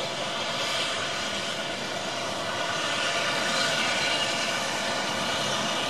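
Small steam tank locomotive running slowly with a passenger carriage in tow, a steady mechanical and steam noise that grows a little louder about halfway through as it comes closer.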